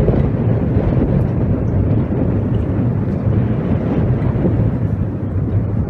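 Steady low rumble of wind buffeting the microphone, with the hum of the fishing boat's engine underneath.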